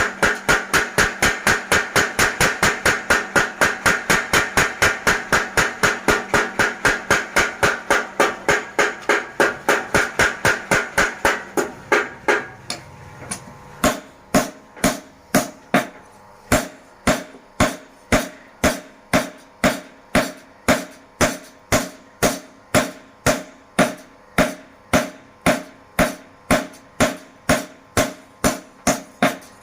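Mechanical power hammer striking hot leaf-spring steel in a steady rapid rhythm, about three blows a second. About twelve seconds in the blows stop briefly, then resume at about two a second, lighter and with a clearer metallic ring.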